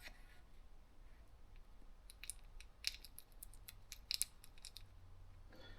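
Faint scattered clicks and small taps from handling and greasing the small parts of a car starter motor's planetary gear set, loudest near the middle.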